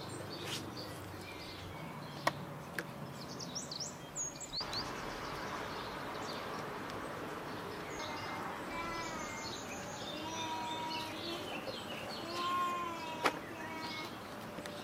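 Birds chirping and calling over a steady outdoor hiss, with a few sharp clicks, the sharpest near the end.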